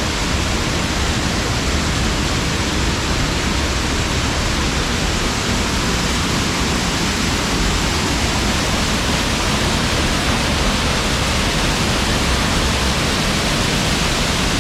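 Waterfall pouring through holes in a rock close by: a loud, steady rush of strongly falling water.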